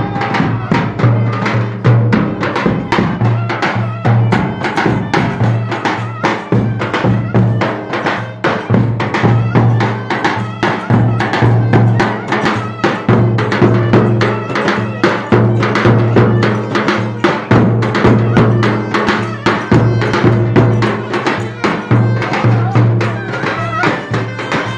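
Traditional Turkish folk dance music played loud, with percussion keeping a steady, even beat over a sustained low note.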